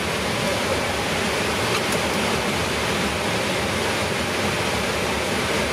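Steady rushing hiss of a Boeing 777-300ER cockpit, made by the air-conditioning airflow and the engines running at idle as the aircraft taxis.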